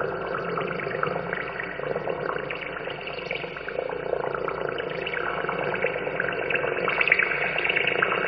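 Muffled, crackling wash of noise like running water, from a lo-fi cassette recording of a noise/goregrind track, slowly getting louder.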